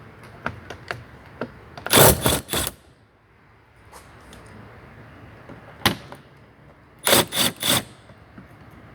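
Impact wrench hammering in short bursts, loosening undercarriage bolts: a burst about two seconds in, a brief one near the middle, and another near the end, with light clicks of handling between.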